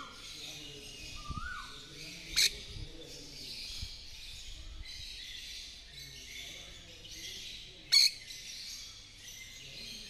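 Peach-fronted conure giving two short, sharp screeches, one about two and a half seconds in and another about eight seconds in. A brief whistled note rises and drops about a second in, over a steady faint high background chirring.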